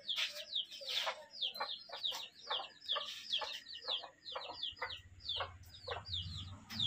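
Domestic chickens clucking and peeping: a rapid run of short, high, downward-sliding chirps over lower clucks.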